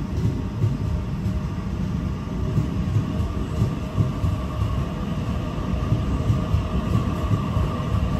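Sydney Trains double-deck electric suburban train moving along the platform: a steady low rumble from its wheels and running gear, with a faint steady hum above it.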